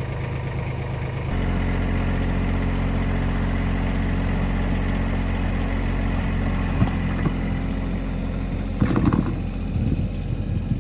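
Tractor engine running steadily, its note stepping up louder about a second in as it is put to work scraping.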